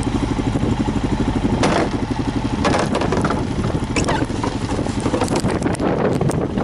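An engine running steadily with a fast, even pulse. Several short bursts of rushing, crunching noise come over it.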